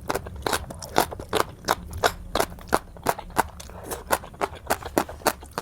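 Close-up crunching of someone chewing crisp food, a sharp crunch about three times a second.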